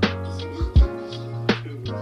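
Background music with a hip-hop beat: deep bass notes, kick drum and snare.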